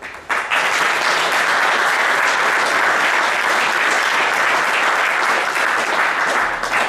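A crowd applauding, starting about half a second in and stopping just before the end.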